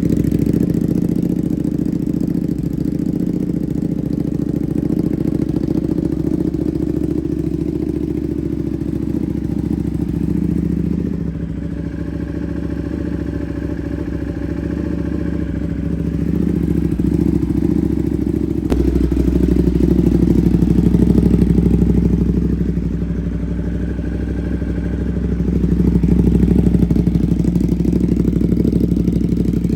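Ducati Panigale V2's 955 cc Superquadro V-twin running through an aftermarket Vandemon exhaust, idling after a cold start with a deep, bassy note. It gets louder twice in the second half.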